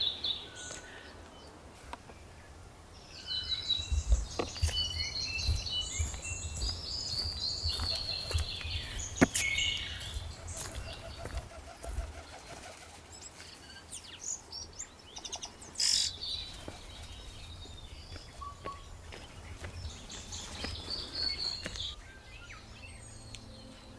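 Forest birds chirping and calling, with busy runs of quick high twitters and trills that come and go, over scattered low thumps.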